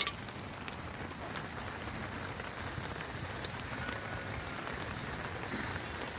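Steady rain falling, an even hiss with faint scattered drop ticks; a brief sharp click right at the start.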